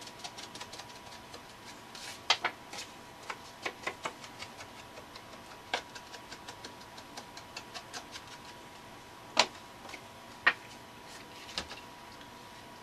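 Scattered small clicks and taps of craft tools and supplies being picked up and set down on a cutting mat, with two sharper clicks about a second apart in the second half. A faint steady high tone runs underneath.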